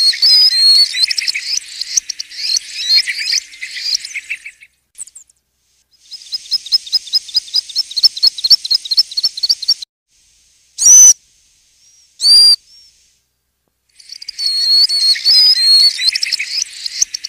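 Stone-curlew (thick-knee) calls: a bout of high, wavering whistles, then a run of quick repeated notes at about five a second, then two single loud whistles about a second and a half apart, and another bout of wavering whistles near the end. The bouts start and stop abruptly.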